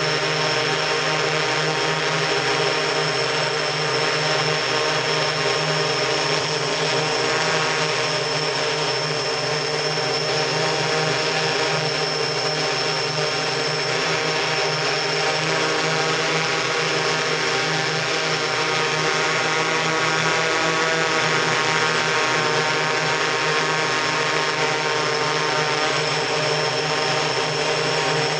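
Octocopter's eight electric motors and propellers running steadily in flight, heard from on board the camera-carrying multirotor: a continuous buzzing drone with a steady high whine on top.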